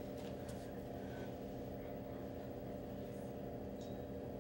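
Room tone: a steady low hum made of several constant tones, with a few faint, soft clicks.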